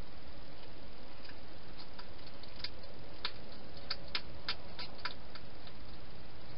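Hedgehog crunching dry food: about a dozen short, sharp, irregular clicks over some four seconds, over a steady hiss.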